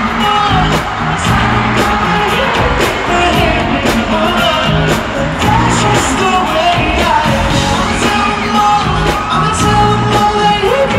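Live pop music in an arena: a male singer's voice through the PA over a band with bass and a steady drum beat.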